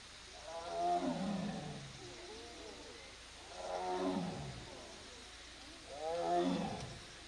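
Tiger calling: three drawn-out calls about two and a half seconds apart, each falling in pitch. It is calling for a companion tiger that is out of sight.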